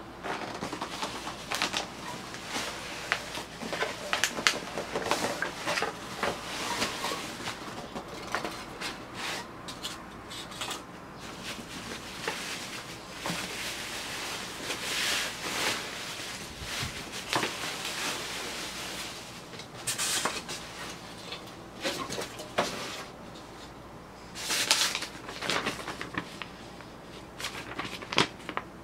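Unboxing sounds: a cardboard box being opened and a bamboo laptop desk slid out and unwrapped from bubble wrap and plastic film, with irregular crinkling, rustling and light knocks throughout, and a paper instruction sheet rustling near the end.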